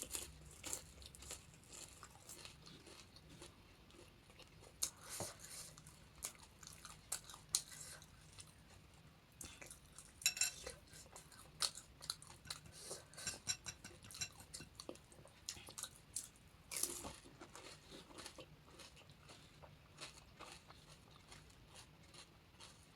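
Dry panipuri puris filled with chips and puffed rice being bitten and chewed close up: irregular crisp crunches throughout, with a few louder bursts of crunching.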